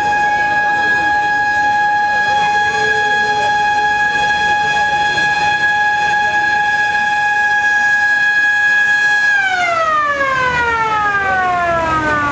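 Siren holding one steady high tone, then winding down in pitch over the last three seconds as it slows.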